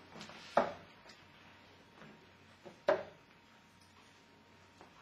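Two steel-tip darts thud into a Winmau Blade 4 bristle dartboard, one about half a second in and the next a little over two seconds later.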